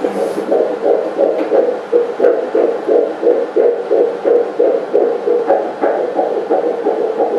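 Pulsed-wave Doppler audio from an ultrasound scanner picking up the heartbeat of a nine-week fetus: a fast, even run of whooshing pulses, about three beats a second.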